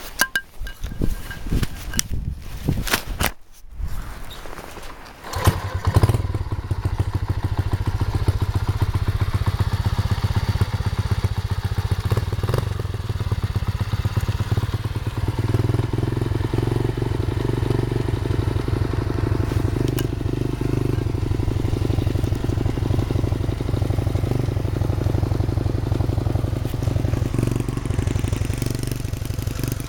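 Honda Monkey's single-cylinder four-stroke engine: a few knocks and clicks, then the engine starts about five seconds in and settles into a steady idle.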